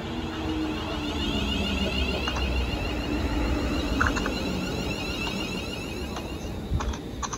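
Class 350 Desiro electric multiple unit running through the platform and slowing, its traction motors whining down slowly in pitch over a low rumble of wheels on rail. A few sharp clicks sound near the end.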